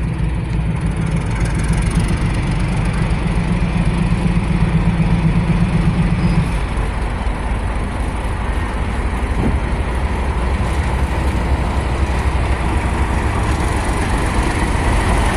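South Australian Railways 830 class diesel-electric locomotive 844 running as it pulls slowly past. Its engine hum is steady, then its note changes about six and a half seconds in, leaving a lower rumble.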